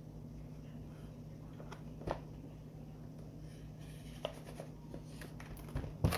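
Product packaging being handled and opened: scattered scraping and rustling with a few sharp clicks, the loudest knock near the end, over a steady low hum.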